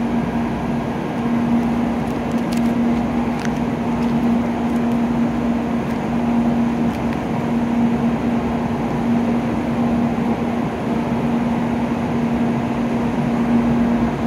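An N700A Shinkansen train standing at the platform with its doors open, its onboard equipment giving a steady hum with one low held tone, mixed with the station's background noise. A few faint clicks come about three seconds in.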